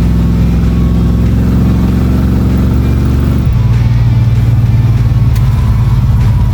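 Chevrolet Biscayne's engine running steadily as the car drives, its note changing abruptly a little past halfway through.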